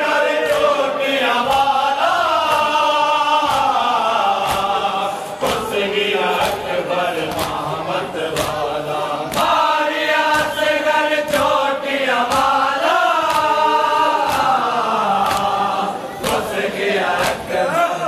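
A crowd of men chanting a Muharram noha (lament) together, led by a voice, with regular sharp slaps of hands striking chests (matam) about once a second.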